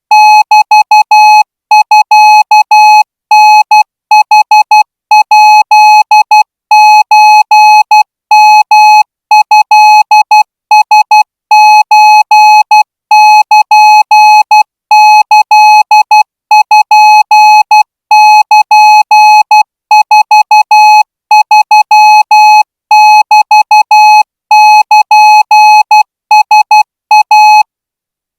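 Morse code sent as a single steady beeping tone, keyed on and off in fast dots and dashes with short pauses between characters. This is a timed Morse receiving test, the signal to be copied by ear.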